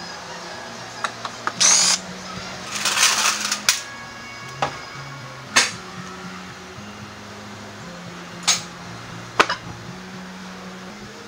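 Background music with a steady, stepping bass line, over the clatter of scooter plastic body panels being handled: several sharp clicks and knocks, and two brief scraping rustles about two and three seconds in.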